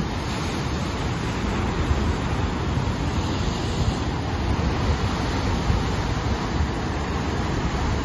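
Rough ocean surf breaking and churning white over rocky shore ledges: a steady, unbroken rush of water, heavy in the low end.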